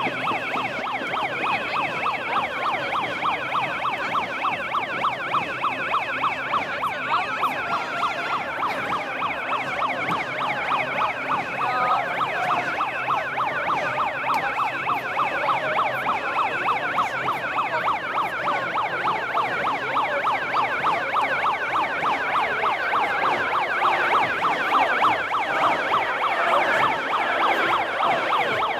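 A siren in a fast yelping warble, sounding continuously over crowd noise.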